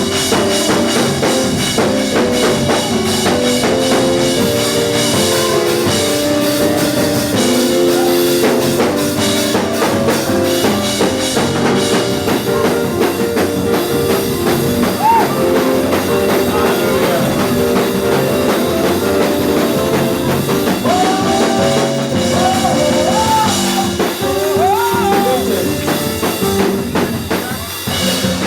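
Loud live gospel praise-break music: a drum kit driving a fast beat under held keyboard chords that change in quick rhythm. Voices call out over it a few times, about halfway through and again near the end.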